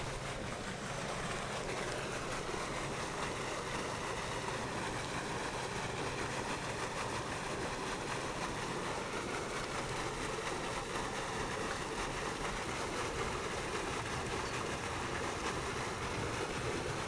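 Steady outdoor background noise: an even hiss with a faint steady hum and no sudden sounds.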